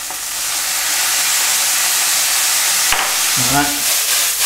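Soy sauce sizzling as it is poured into a hot frying pan of stir-fry vegetables: a steady hiss that swells over the first second, with a single knock about three seconds in.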